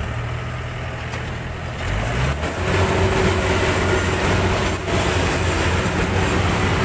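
Yanmar AW70V rice combine harvester running, its diesel engine and threshing machinery giving a steady hum. About two seconds in, the engine speeds up and gets louder, then holds steady.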